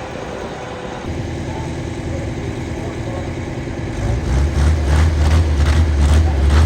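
An engine running steadily, with a deep low drone that grows much louder about four seconds in.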